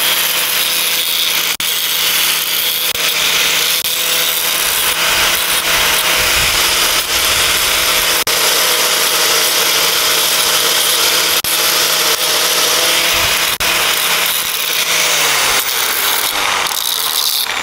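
Corded angle grinder running at speed while a small steel button held in locking pliers is ground to shape against the wheel: a steady motor whine over a harsh grinding hiss, with a few brief breaks in contact. Over the last few seconds the motor winds down as it is switched off.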